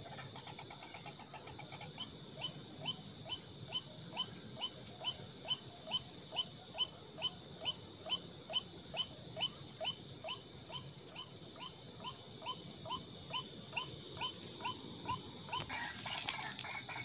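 A short rising call repeated evenly, about two or three times a second, stopping shortly before the end, over a constant high trilling of night insects.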